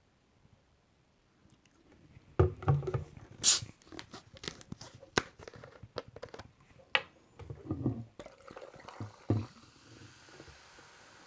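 Lemon soda being handled and drunk close to the microphone: a run of sharp clicks, taps and low thumps with liquid sounds, and a short bright hiss about three and a half seconds in. From about eight seconds in, a faint steady fizz of carbonation.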